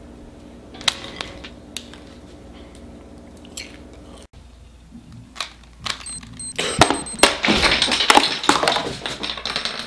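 Popcorn kernels popping one at a time over a steady hum for about four seconds. After an abrupt cut come a few sharp knocks, then a loud, dense crackling noise near the end.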